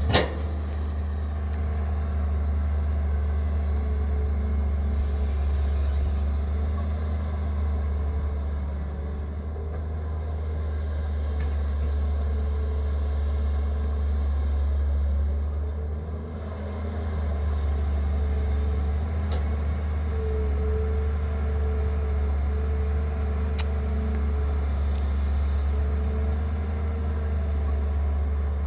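Caterpillar 320 hydraulic excavator's diesel engine running steadily under load as it digs and swings soil, a low drone with a faint wavering whine above it. The engine note eases off briefly twice, and a sharp click sounds right at the start.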